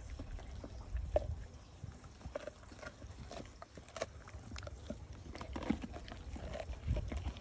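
A Cane Corso chewing and gnawing on a raw meaty bone, with irregular clicks and snaps of teeth on bone.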